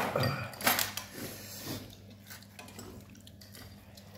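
A metal knife cutting and scraping meat off a boiled pig's head on a plate, with a few short sharp scrapes in the first couple of seconds, then quieter.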